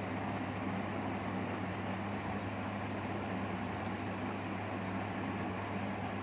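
Steady fan-like blowing hiss with a low electrical drone underneath, unchanging throughout.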